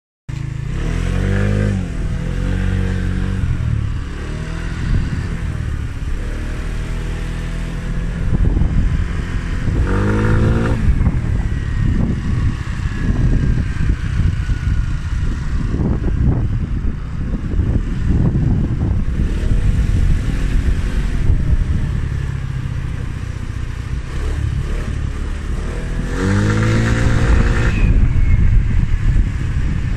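Scooter engine running while riding, its pitch climbing several times as it accelerates, over a heavy rush of wind on the microphone.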